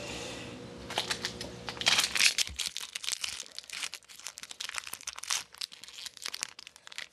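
Wrapper of an Upper Deck Series 2 baseball card pack crinkling and tearing as it is ripped open by hand. A dense run of irregular crackles starts about a second in.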